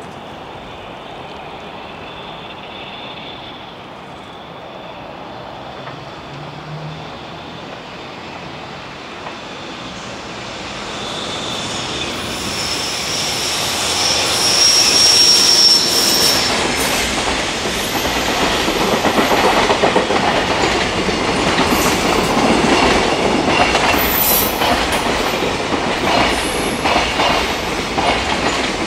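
JR Freight EF210 electric locomotive approaching and passing with a long container freight train. The rumble builds over about ten seconds, with a high steady squeal as the locomotive goes by, then the container wagons' wheels clatter over the rail joints.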